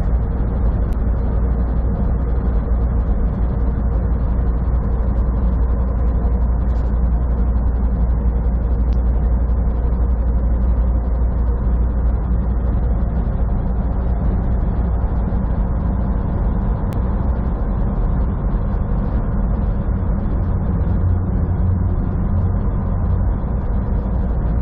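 Semi truck cruising at highway speed, heard from inside the cab: a steady low drone of engine and road noise.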